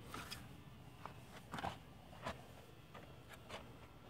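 Quiet, with a handful of faint, short scuffs and rustles scattered through it.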